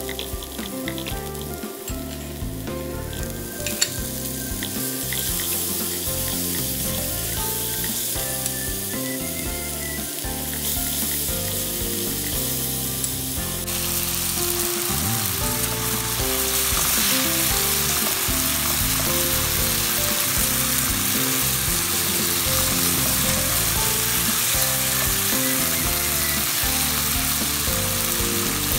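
Onions and garlic, then ground meat and tomatoes, frying and sizzling in a nonstick pan while being stirred with a silicone spatula. The sizzle gets louder about halfway through.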